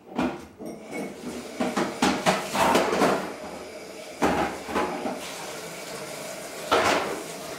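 A small dog chewing and tugging at a crumpled sheet of paper, the paper crinkling and rustling in irregular spurts.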